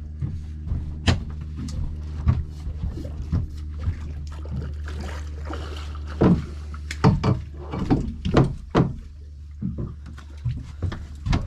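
Boat engine idling with a steady low hum, with irregular knocks and clicks from the rod, reel and gear as a bass is reeled in, busiest about two-thirds of the way through.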